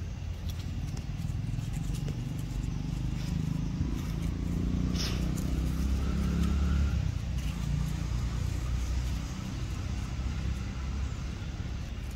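A motor vehicle passing: a low engine rumble that swells about halfway through and then fades, with faint scattered clicks above it.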